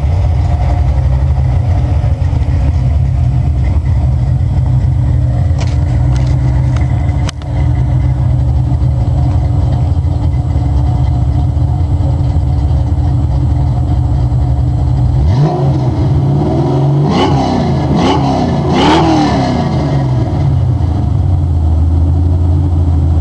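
1991 Ford Mustang 5.0's 302 V8, with an F303 cam, GT40 heads and 24 lb injectors, idling steadily through its exhaust, then revved with three quick blips of the throttle about two-thirds of the way through before settling back to idle. The engine is running untuned on the larger injectors with the stock mass airflow sensor.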